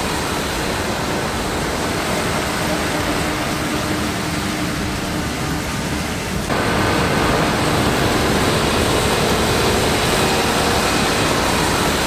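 Heavy farm machinery running in a harvested corn field: a tracked tractor's engine and a grain cart rolling over corn stubble, heard as a loud, dense, steady rumble and rush. About six and a half seconds in the sound changes abruptly and gets a little louder.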